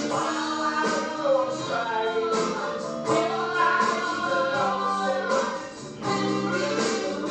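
Live musical-theatre singing with band accompaniment, a slow rock-and-roll ballad, with a brief lull about six seconds in.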